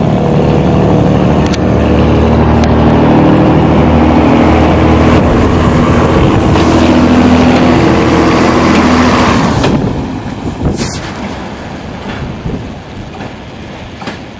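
Two-car Uerdingen-type diesel railbus passing close by, its underfloor diesel engine running loudly and steadily with a low hum. About two-thirds of the way through the engine sound drops away and fades as the railbus moves off, with a single sharp click shortly after.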